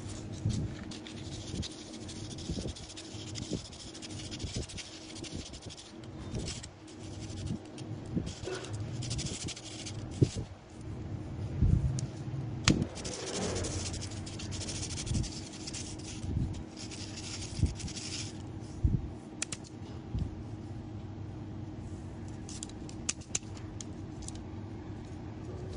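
Sandpaper rubbing along a thin bamboo stick in spells of quick strokes, a scratchy hiss that starts and stops every few seconds, with light clicks and taps as the thin bamboo sticks are handled.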